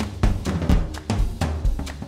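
Upbeat background music driven by a drum kit, with bass drum and snare hits about four times a second over a bass line.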